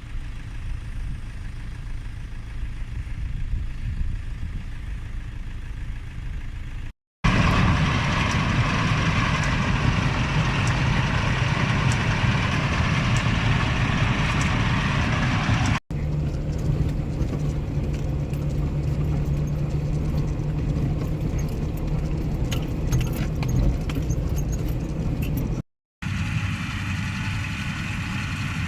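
Heavy farm machinery engines running, in four short clips cut together with brief dropouts between them. The second clip is the loudest and noisiest, and the third carries a steady low engine drone with faint ticks over it.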